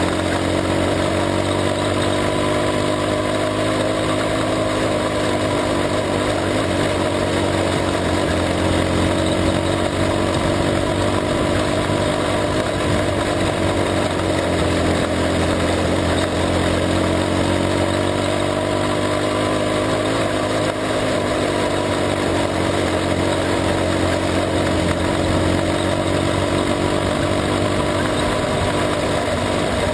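A junior sprint car's engine running flat out on a dirt oval, heard from on board the car. Its pitch dips and climbs again every several seconds as the car lifts and accelerates, over a steady rush of noise.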